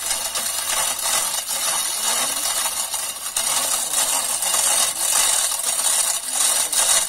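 Dense rattling and scraping made of many small clicks, steady and fairly loud throughout.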